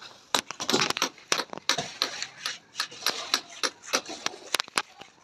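Hand tools working masonry: a quick, irregular run of sharp metal-on-cement taps and scrapes, about two to three a second.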